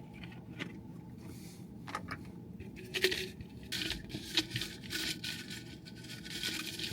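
Faint handling noises from a small plastic snow-globe container and the pieces inside it: a few light clicks, scrapes and rustles as it is handled and its contents sorted through.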